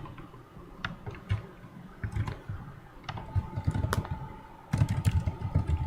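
Typing on a computer keyboard: scattered key clicks and taps, with louder low knocks and bumps in the last second. A faint steady tone comes in about halfway.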